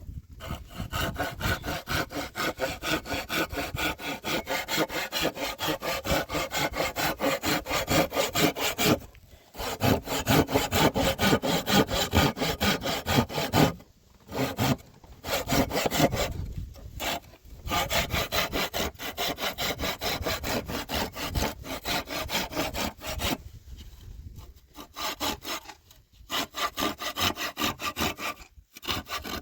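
Fast, rhythmic back-and-forth rasping strokes, like a hand saw cutting through wood, broken by several short pauses.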